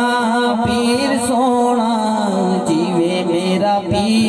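Zikr chanting: men's voices holding a steady low drone while a lead voice sings a wavering devotional melody above it.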